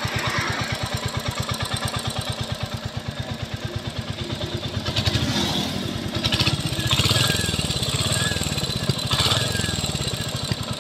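Royal Enfield Hunter 350's single-cylinder engine idling with an even, rapid beat, getting louder for a few seconds midway. It carries a noise that comes on after a ride of 15–20 km, which the owner thinks may be tappet noise but cannot confirm.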